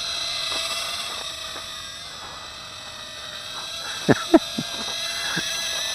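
Caged micro quadcopter's tiny motors and propellers whining steadily, wavering slightly as it hovers on a nearly spent battery. A few short, sharp chirps break in about four seconds in.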